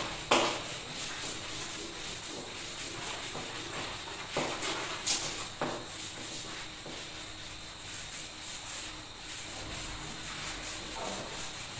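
Blackboard duster rubbing back and forth over a chalk-covered blackboard, erasing it: a steady scrubbing hiss with a few louder strokes.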